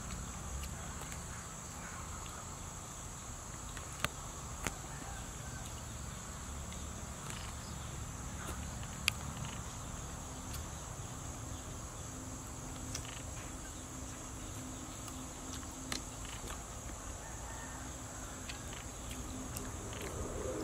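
Steady high-pitched drone of insects, with a low rumble underneath and a few short sharp clicks scattered through it, the loudest about nine seconds in.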